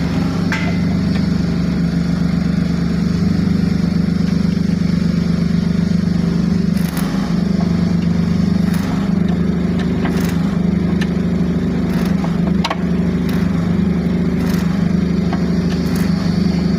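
Steady low engine-like drone, with scattered sharp clicks and knocks over it.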